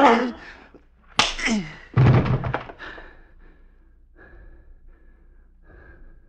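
Radio-drama murder acted out: a sudden blow and a short cry about a second in, then a heavier thud with a groan, then faint, ragged gasping breaths as the struck man dies.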